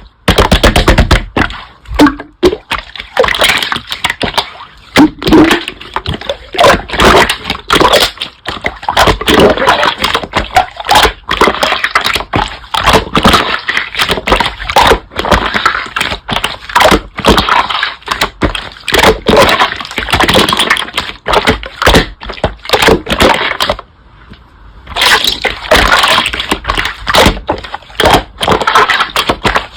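Slime being pressed and squeezed by hand, a dense run of crackling, popping and squelching with a short pause near the end.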